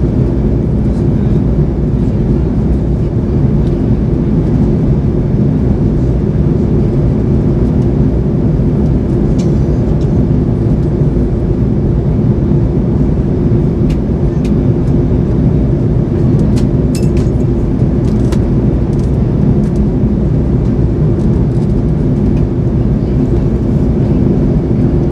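Steady cabin noise of a Boeing 787-9 in flight, heard inside the cabin by the wing: the drone of its GEnx-1B turbofan engines and the rush of airflow, over a steady low hum. A few faint ticks in the second half.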